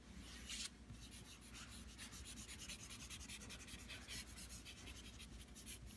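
Faint, quick scratching of a stick of charcoal stroked back and forth on drawing paper, several strokes a second, laying down a dark layer of shading.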